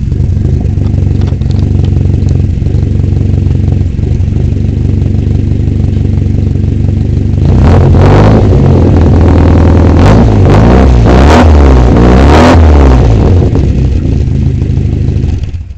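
Lotus Elite four-cylinder engine on twin 45 Dellorto carburettors, running through straight-through twin exhausts. It idles steadily, then is blipped several times about halfway through, rising and falling in pitch, and settles back to idle before the sound cuts off at the end.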